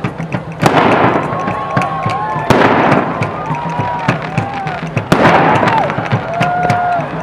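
Aerial fireworks bursting: three loud booms about two seconds apart, each followed by crackling, with sharp pops throughout.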